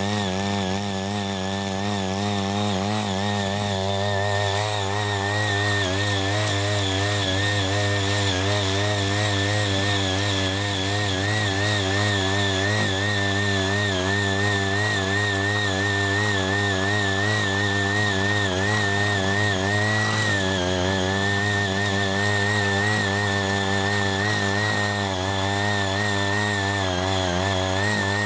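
Small petrol engine of a CY80 mini rotary tiller running fast under load as its tines churn untilled soil, its pitch wavering up and down continually. About two-thirds of the way through the engine briefly dips in speed and picks up again.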